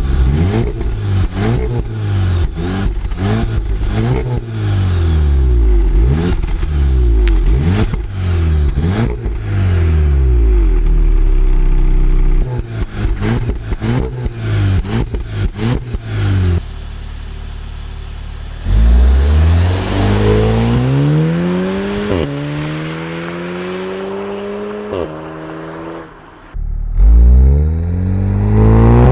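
Volkswagen Golf 7 R's turbocharged 2.0-litre four-cylinder revved repeatedly with its exhaust flaps open, quick blips rising and falling about once a second. About two-thirds of the way in the sound changes to a few longer climbs in revs, each dropping off sharply.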